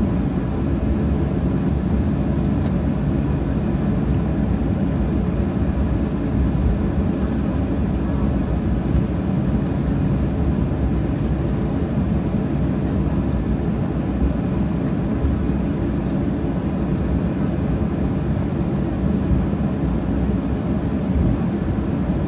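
Steady jet cabin noise of a Boeing 737-800: its CFM56 engines at idle thrust as the jet lines up and waits on the runway before the takeoff spool-up, a low rumble with a faint steady whine, heard from inside the cabin.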